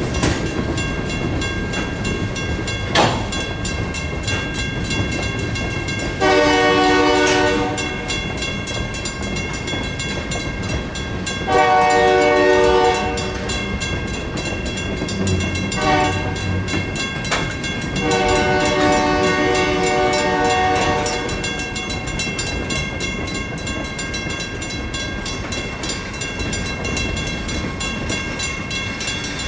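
Federal Signal mechanical railroad crossing bell ringing with fast, steady strokes, while a locomotive horn sounds the grade-crossing signal of two long blasts, a short one and a final long one. The horn blasts are the loudest sounds.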